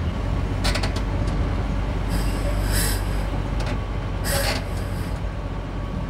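A construction crane's engine running steadily under load, with three short hisses of air.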